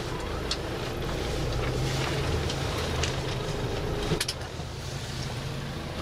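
Minibus engine and cabin noise from inside, with a steady low hum as the bus moves slowly. A sharp knock comes about four seconds in, after which the hum is a little quieter.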